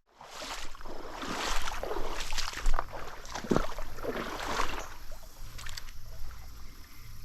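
Stream water splashing and sloshing in an irregular run of splashes that eases after a few seconds into the steady sound of running water.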